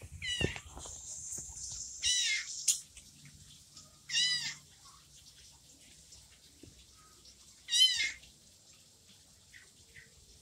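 A young orange kitten meowing four times: short, high-pitched cries a couple of seconds apart. It is a kitten left by its mother, crying on its own.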